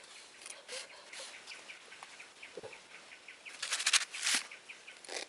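Quail peeping in a rapid series of short high chirps, about four or five a second, broken about four seconds in by a brief loud flurry of rustling like wings flapping.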